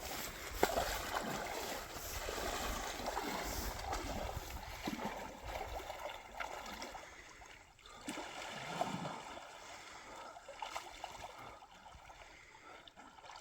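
A person splashing about in cold water: irregular sloshing and splashes, with scattered sharp spatters.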